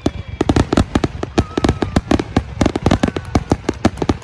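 Aerial fireworks bursting in a rapid barrage, many sharp bangs a second overlapping one another.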